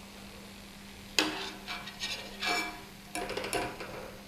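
Steel slotted spoon clinking against the kadhai and plate about four times, each a sharp tap with a short metallic ring, over a faint steady hum.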